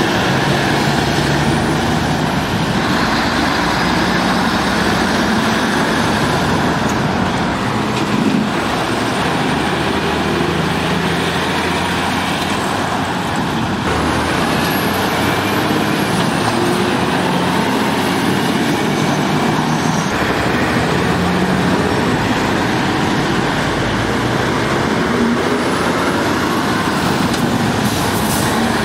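Articulated lorries' diesel engines running as they pull round a roundabout one after another, their engine notes shifting up and down over steady tyre and traffic noise.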